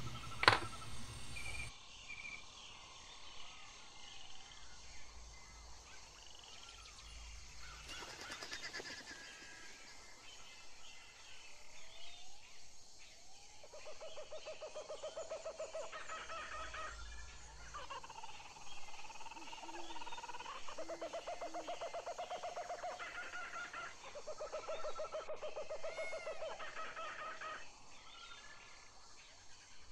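Birds chirping and singing, with several repeated pulsing trills a couple of seconds long each; a sharp click right at the start.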